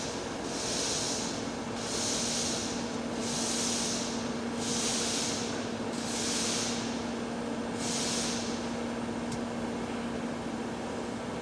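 TIG welding arc on heavy-wall pipe: a hiss that swells and fades about every second and a half, stopping near the end, over the welding machine's steady low hum.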